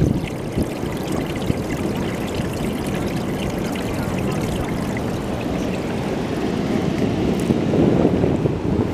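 Shallow seawater washing and trickling over coral rubble: a steady rushing wash of water.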